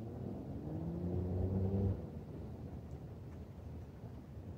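A motor vehicle's engine rising slightly in pitch for about two seconds, then cutting off sharply, leaving a low rumble.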